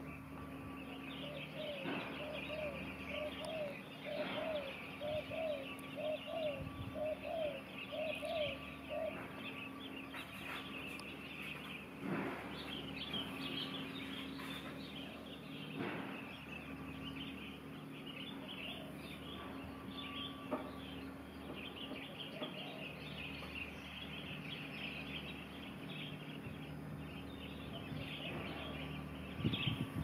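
Wild birds chirping and twittering in many short high notes throughout. For the first nine seconds or so there is also a run of lower, evenly repeated calls, about two a second, all over a steady low hum.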